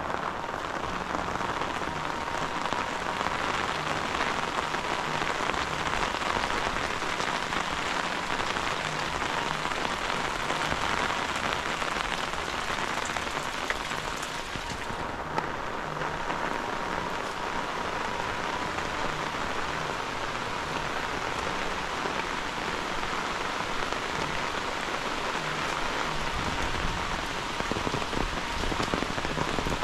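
Heavy rain falling steadily on tiled roofs and dense leaves, with rainwater running and dripping off the roof eaves.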